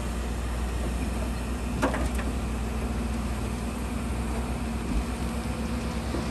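Diesel engine of heavy earthmoving machinery running steadily, with two short sharp knocks a little under two seconds in.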